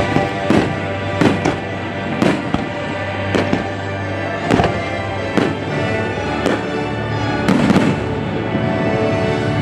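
Fireworks shells bursting in a string of about ten sharp bangs at uneven intervals, over a steady music soundtrack.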